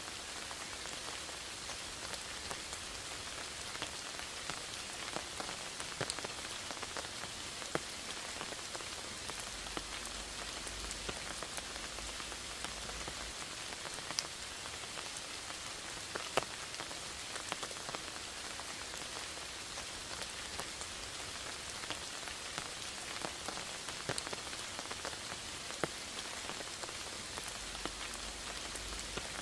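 Steady rain falling in a forest, an even hiss with many individual drops ticking sharply on nearby surfaces.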